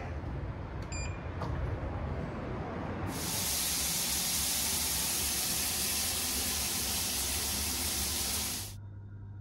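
Overhead rain shower head spraying water onto a tiled shower floor: a loud, even hiss that starts about three seconds in and cuts off sharply near the end. Before it there is a low background rumble with a short electronic beep about a second in.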